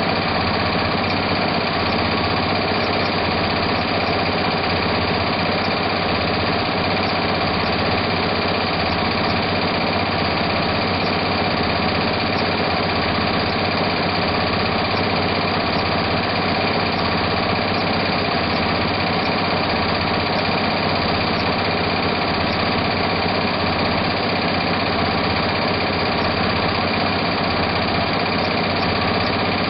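Multi-needle embroidery machine running steadily, its needle bar stitching at speed with a rapid, even clatter.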